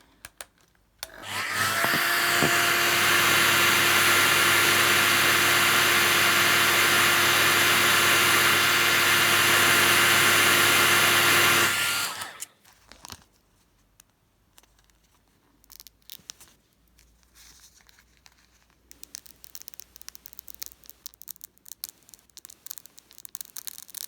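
Handheld hairdryer switched on about a second in, blowing steadily with a motor whine for about ten seconds, then switched off. Afterwards, faint rustling and small clicks from handling and peeling the paper decal sheet.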